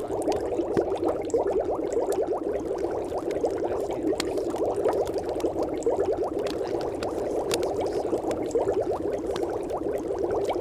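Steady bubbling, liquid-like background sound, with scattered faint clicks.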